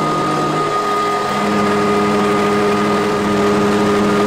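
Motor of a machine processing black soybeans, running with a steady hum over a rushing noise; the hum steps up slightly in pitch about a second in.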